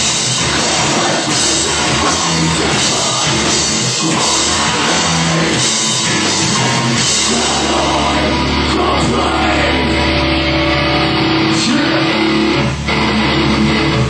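Loud rock music with a drum kit and guitars. About eight seconds in the steady drumming thins out, leaving long held chords ringing.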